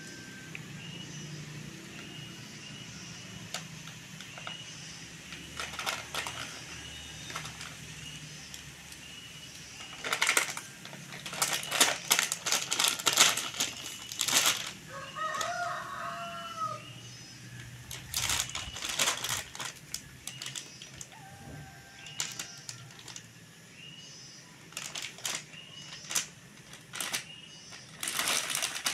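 Crinkling of a foil-plastic food packet as a cat noses into it, bites it and paws it across the floor, in irregular crackly bursts, loudest around the middle and again near the end.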